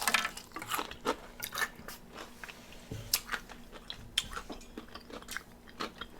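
Close-up eating sounds of crispy fried chicken wings: crunchy bites and chewing, with irregular sharp crackles of the breading, busiest in the first second.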